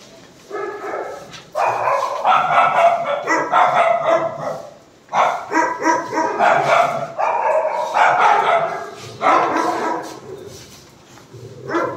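Several dogs barking together, in long overlapping spells with short pauses between them.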